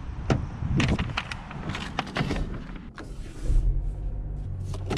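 Chevrolet Camaro: a run of clicks and knocks, then a short burst of noise about three seconds in, and the engine settling into a steady low idle.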